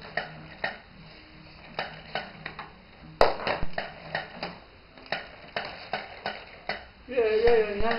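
Hard plastic toys clattering and knocking on a wooden floor: a run of irregular clicks and knocks, with the loudest knock about three seconds in. Near the end, a short, wavering voice.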